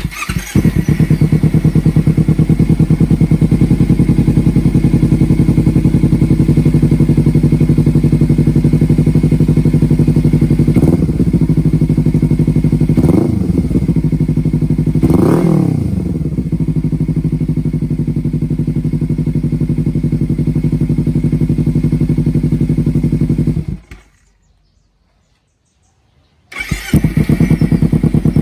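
Kawasaki Ninja 300's parallel-twin engine through an SC Project slip-on exhaust, starting and idling steadily, with three short throttle blips about halfway through. Near the end it is switched off and, after a couple of seconds of silence, started again and settles back to idle.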